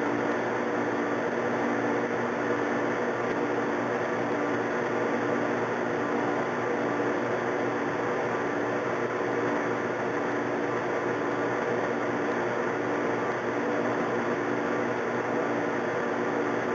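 Metal lathe running steadily at slow speed (about 70 RPM), turning a rifle barrel while a chamber reamer is fed in to cut the chamber: an even motor and gear hum with a few held tones.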